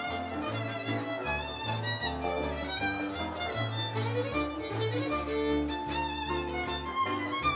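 Hungarian folk dance music led by a fiddle playing a running melody over a low bass line that changes notes steadily.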